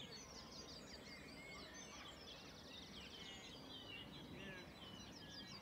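Faint birdsong: several small birds chirping and twittering, with a short buzzing trill about two and a half seconds in, over a low steady background hiss.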